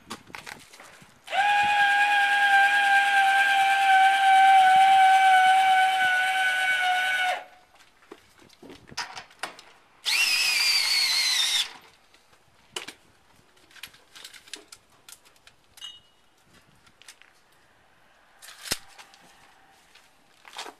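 Ryobi cordless drill driving a travel trailer's tongue jack: a steady motor whine for about six seconds, its pitch sagging slightly under the load, then a second, shorter run a few seconds later whose pitch falls. Light clicks and handling knocks in between.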